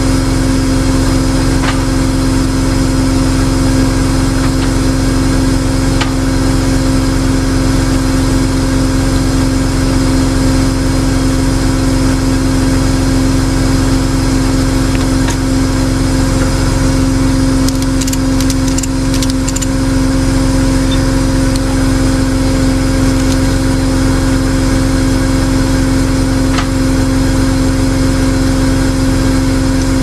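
Tow truck's engine idling steadily, a constant hum, with a few faint clicks about eighteen seconds in.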